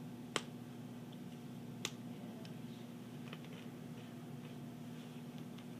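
Two sharp clicks about a second and a half apart, then a few faint ticks, over a steady low hum of room equipment.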